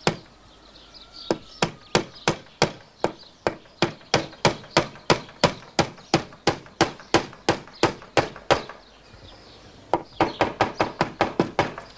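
Claw hammer nailing old wooden boards together: a steady run of sharp strikes about three a second, a pause of a second or so, then a quicker run of blows near the end.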